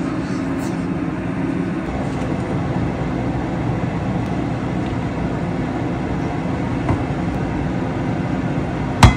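Steady low hum with a faint steady tone running throughout. Near the end comes a sharp clank, the frying pan being set down on the glass cooktop.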